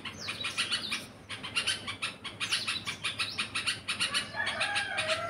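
Bulbul chirping: a quick, unbroken run of short, high chirps, several a second, pausing briefly a little after a second in.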